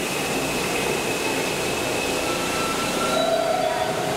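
R160 subway train braking into a station: steady wheel-on-rail noise with a high electric whine that steps down in pitch as it slows, the rushing noise easing off about three seconds in.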